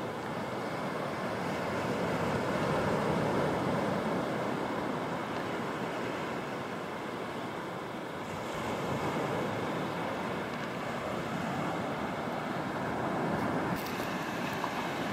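Surf washing onto a sandy beach: a steady rush of breaking waves that swells and eases.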